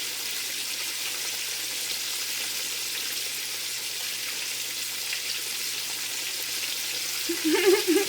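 Chicken frying in hot oil, a steady even sizzle. Near the end a short wavering pitched sound, the loudest moment, comes in over it.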